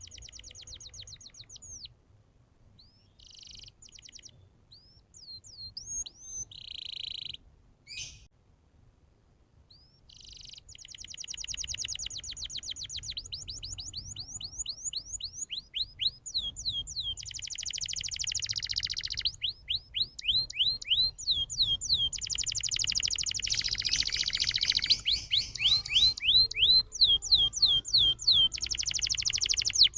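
Domestic canary singing: short phrases with gaps for the first ten seconds or so, then an unbroken run of fast trills and rolls of rapidly repeated high notes to the end.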